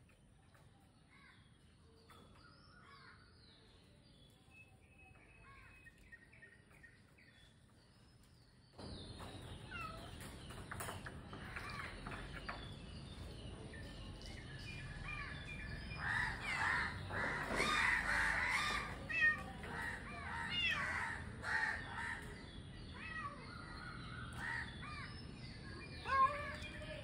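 Crows cawing over and over, faint at first, then suddenly louder from about a third of the way in, with many overlapping caws that are busiest a little past the middle.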